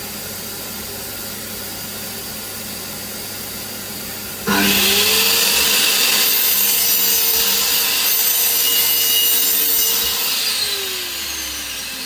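Mitre saw switched on about four and a half seconds in, its motor whine rising to speed at once and running loud while the blade cuts through a stack of LVT (luxury vinyl tile) pieces. About ten seconds in it is switched off and the whine falls away as the blade winds down. Before it starts there is only a steady low hum.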